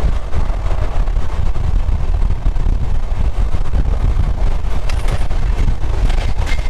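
Moving Indian Railways passenger train running, a steady, heavy low rumble with a few faint clicks near the end.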